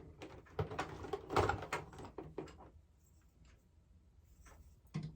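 Ring-light parts being handled during assembly: a quick run of small clicks and knocks in the first few seconds, then a few faint clicks, and one more knock near the end.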